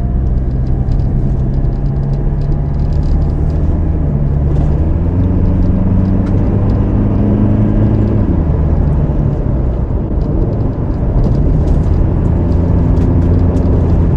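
Toyota Hilux pickup heard from inside the cab while driving fast on a dirt road: a steady engine hum with tyre and road noise. The engine note climbs for a few seconds and drops back sharply about halfway through, with light ticks and rattles over the top.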